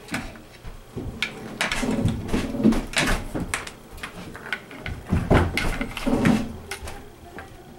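Handling noise from an old Jebao wavemaker controller: irregular clicks, knocks and thuds as its open plastic housing, circuit board and three-pin connector cable are handled and moved about on a workbench.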